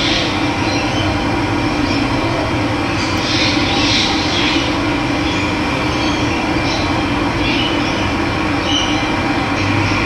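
Steady rush of flowing water, with birds calling briefly over it now and then.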